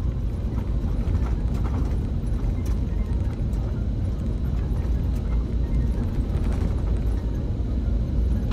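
Steady low rumble of a vehicle on the move, road and engine noise.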